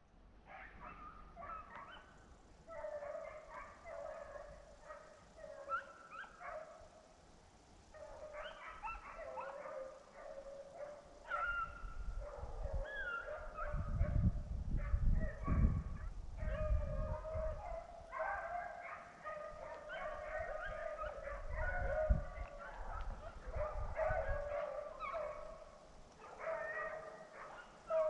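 A pack of beagles baying, many short overlapping cries, the hounds' voice while running a rabbit. A low rumble comes in about halfway through.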